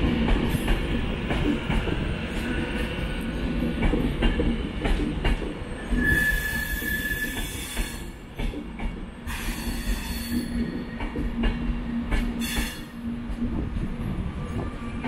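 Class 390 Pendolino electric train pulling into a platform: a steady rumble with wheels clicking over rail joints, a single wheel squeal about six seconds in, and short hisses around six, nine and twelve seconds.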